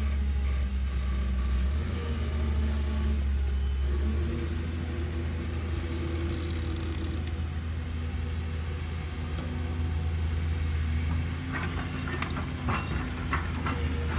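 Caterpillar excavator's diesel engine running with a steady low hum, its pitch shifting a little now and then. Near the end comes a run of sharp clanks and clicks.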